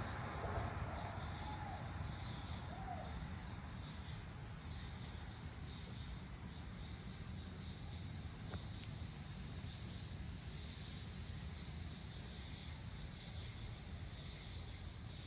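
Evening insect chorus: a steady high-pitched drone with a softer pulsing trill beneath it. A low rumble fades out over the first few seconds, and a couple of short chirps sound near the start.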